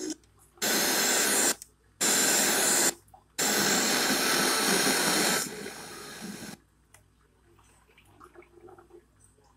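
FM radio receiver hissing with interstation static in three loud bursts, muted in short gaps between them as the preset and tuning buttons are pressed; about six and a half seconds in the hiss cuts off and the tuner goes nearly silent while it scans.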